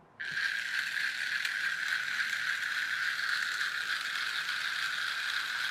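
Small electric motor and plastic gear train of a TOMY toy plane running with the gearbox cover off, a steady whirring gear chatter that switches on suddenly about a quarter second in. It drives a single cam that works two motions at once, one part going up and down and another forwards and backwards.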